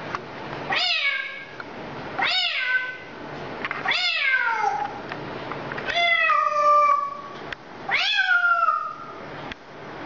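African grey parrot mimicking a cat's meow: five drawn-out meows, each rising and then falling in pitch, spaced about one and a half to two seconds apart.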